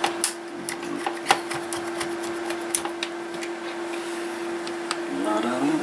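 Scattered small clicks and taps of a screwdriver working screws and parts into the plastic chassis of an Aiwa boombox, over a steady low hum. A short rising pitched sound comes in near the end.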